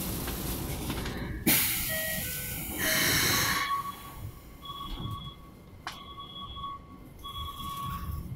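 Inside a Keikyu 1500-series electric train pulling out of a station, with a steady low rumble. A sharp knock comes about a second and a half in, then a few short tones and a loud burst of air hiss. After that, steady whining tones come and go as the train starts to move.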